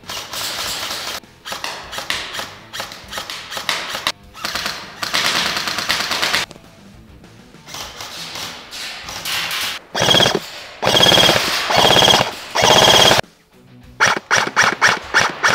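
NPO AEG AS VAL 2014 airsoft electric gun (AEG) firing full-auto bursts, with a pause in the middle and rapid separate shots near the end, over background music.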